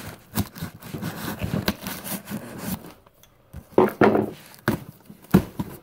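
A cardboard box being handled: rubbing and scraping for a couple of seconds, then a few separate knocks near the end.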